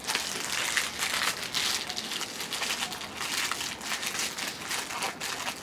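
Crinkling of a Kit Kat wrapper being opened and handled, an irregular run of crackles throughout.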